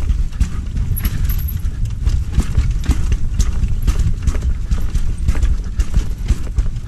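Mountain bike rolling fast down a rough dirt trail: a steady low rumble with irregular clicks and knocks as the bike rattles over bumps and ruts.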